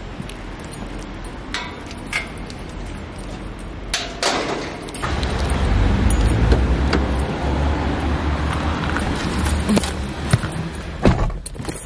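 Keys jangling and clicks of handling as someone opens an Audi's driver door by its handle and climbs into the seat, with a low rumble of movement. A sharp knock near the end, as the car door is pulled shut.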